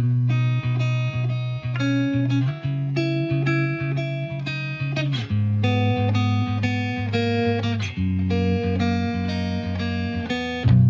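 Background music: quick, rhythmic plucked guitar notes over a steady bass line, with a fuller bass coming in near the end.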